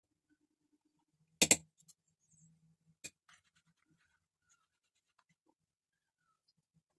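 Stainless steel bowl knocking against a steel plate as it is handled: a sharp double clank about a second and a half in, then a lighter click about a second later, with faint scraping.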